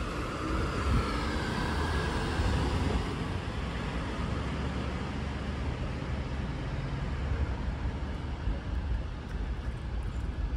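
Road traffic on a town street: a vehicle passes during the first few seconds, and then steady traffic noise with a low rumble continues.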